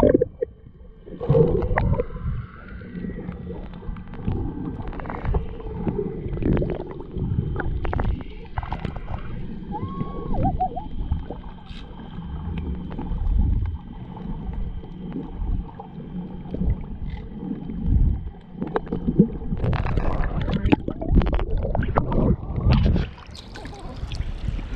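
Muffled underwater sound from a camera held below the surface while snorkeling: a low rumbling with irregular bubbling and gurgling. From about twenty seconds in the sound opens up into splashing, as at the water's surface.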